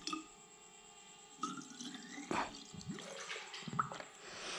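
Plastic water bottle held under the surface of a water tank, gurgling and bubbling as it fills, with a rising tone about a second and a half in.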